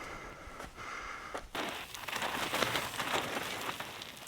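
Gritty, crackling rush of mountain-bike tyres rolling over loose gravel and rock, cutting in abruptly about a second and a half in.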